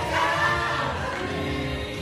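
Gospel choir singing with instrumental accompaniment; the voices move at first, then hold a steady chord through the second half.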